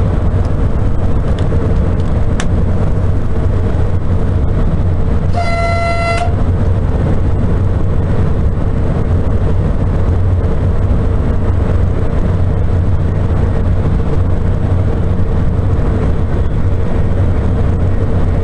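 Steady rumble of a Sapsan (Siemens Velaro RUS) high-speed train running at speed, heard in the driver's cab. About five and a half seconds in comes one short, single-pitched horn toot.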